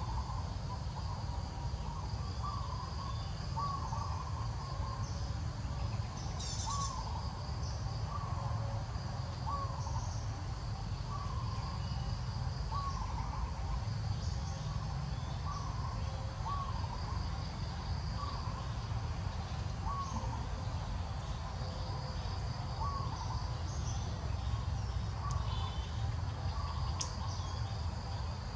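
Outdoor ambience: a short chirping call repeats about once a second, over a faint high insect drone and a steady low rumble.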